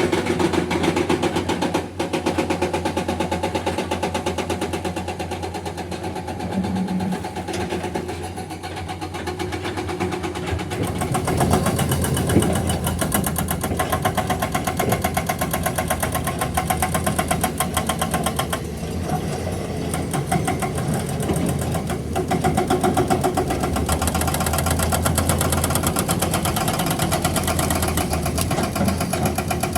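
Heavy diesel engines of an excavator and dump truck running steadily, working harder and rougher from about eleven seconds in, with a single sharp knock a little after that.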